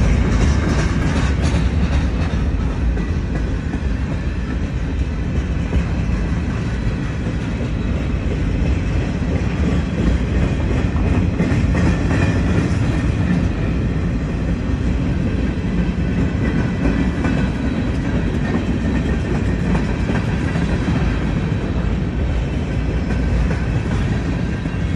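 Freight cars rolling past at close range: a steady rumble of steel wheels on the rails, with clicking as the wheels cross rail joints.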